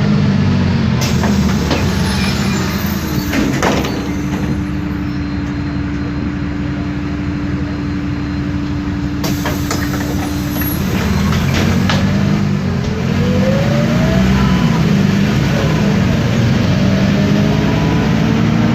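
City bus with a MAN D0836 LOH diesel and ZF Ecomat 6HP504C automatic gearbox, heard on board: the engine drones steadily, compressed air hisses twice with sharp clicks, and a steady tone holds for several seconds in the middle. Near the end the bus pulls away, the gearbox and driveline whine rising as it speeds up.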